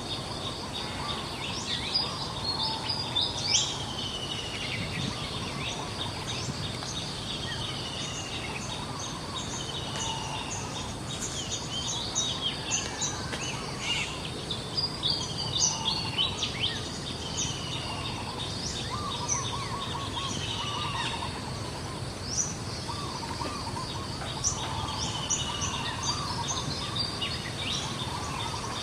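Many birds calling at once: repeated short descending whistles and quick high chirps, with some lower warbling calls. Under them runs a steady background hiss and a constant high-pitched tone.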